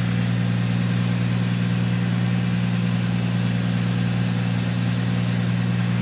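Boat engine running at a steady speed: a constant low drone with no change in pitch or level.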